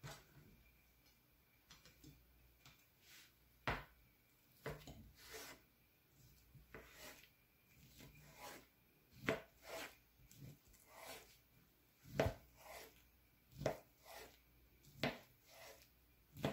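Kitchen knife slicing a bean curd skin roll on a plastic cutting board: the blade rasps through the dry, papery skin and knocks on the board with each cut, in a string of about fifteen irregular knocks.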